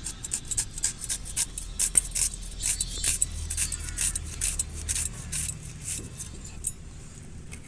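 A blade cutting onion: a quick irregular run of short cutting strokes, about three or four a second, that stops about a second before the end.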